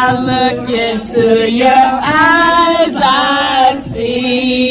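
A teenage girl singing loudly right at the phone's microphone, holding long notes that glide up and down, with at least one other voice singing a lower line beneath her.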